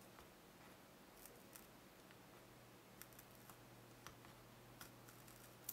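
Near silence, with a few faint, scattered ticks and crinkles from fingers picking at copper foil tape inside an opened tablet.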